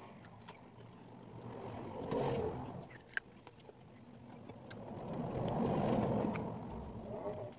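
Quiet eating sounds: crispy fried chicken being chewed and picked apart by hand, with a few small clicks. Two slow swells of low rumble rise and fade, the louder near the end.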